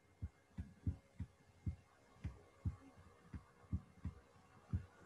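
Faint, dull, low thumps of a stylus striking a tablet screen as a short formula is handwritten, about two to three taps a second at slightly uneven spacing.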